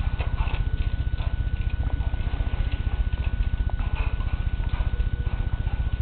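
A constant low hum with a fast, even flutter, over faint scattered scratches and rustles from a pet rat climbing through the bark and leaves of a potted plant.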